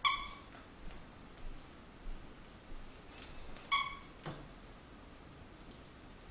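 Plush dog toy squeaking twice, short and high, about three and a half seconds apart, as a miniature schnauzer puppy chews and shakes it, with light knocks of paws and toy on a wooden floor in between.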